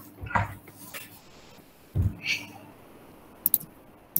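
A few computer mouse clicks and small handling noises over quiet room tone, with a soft thump about two seconds in and a pair of quick clicks near the end.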